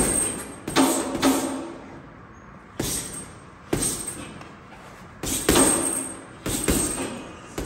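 Boxing gloves striking a heavy punching bag, about eight hits in single shots and quick doubles with pauses between, each hit ringing briefly in the room.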